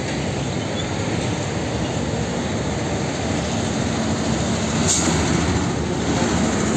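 Diesel container truck passing close by, its engine running steadily under a constant haze of tyre and road noise. A brief sharp click comes about five seconds in.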